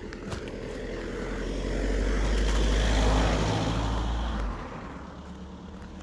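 A car driving past: engine hum and tyre noise swell to a peak about three seconds in, then fade by about five seconds, over the walker's footsteps on the road.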